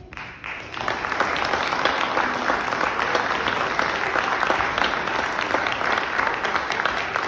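Audience applauding, swelling over the first second and then steady.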